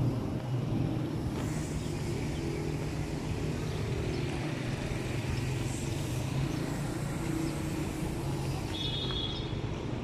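A motor running with a steady low drone.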